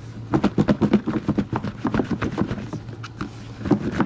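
Bok choy leaves shaken hard inside a bowl covered with a plastic lid, rattling and thudding against the bowl and lid in quick repeated strokes as they are tossed to coat them in oil and salt.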